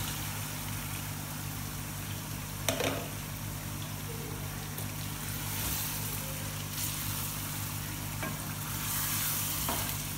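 Fish pieces sizzling in hot masala gravy in a steel pot as a wooden spoon stirs them in, with a short knock of the spoon against the pot about 3 s in and again near the end.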